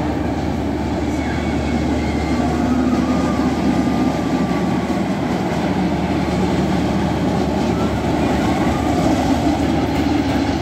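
A train running on its track: a steady low rumble and clatter, with a few faint wheel squeals about two to four seconds in.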